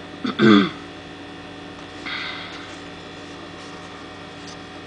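Steady electrical mains hum, with a brief vocal sound about half a second in and a short rustle of the paper instruction sheet being handled about two seconds in.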